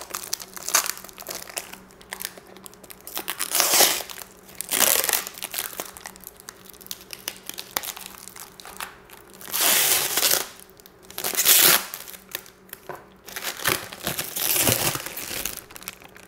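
Thin clear plastic wrap crinkling and rustling as it is pulled off a chrome-plated GPU waterblock, in irregular bursts with the loudest rustles around four, ten and twelve seconds in.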